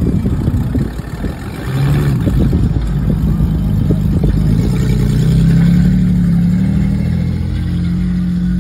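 Pickup truck engine revving hard in a burnout, with rough noise at first, then a high held engine note that climbs a little partway through and stays up.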